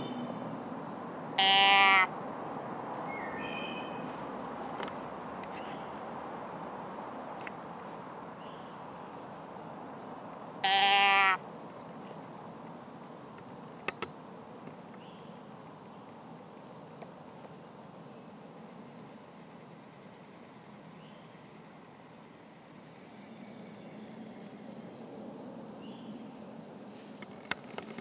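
Two bleats from a deer doe-bleat call, each about half a second long and about nine seconds apart, over a steady chorus of insects.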